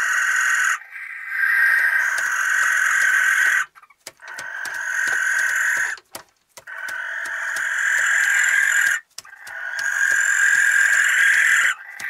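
Barn owls giving long rasping, hissing screech calls, about five in a row, each roughly two seconds long with short breaks between them.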